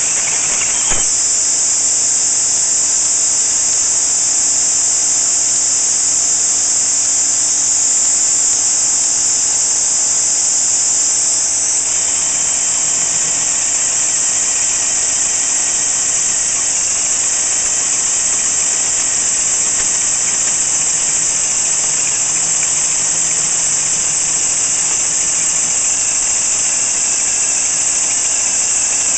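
Diablo carbide-tipped 1½-inch hole saw cutting through 1-inch-thick steel plate, the drill running steadily with a squeal from the cut. A loud continuous hiss of compressed air is blown onto the cut to clear the shavings from the groove.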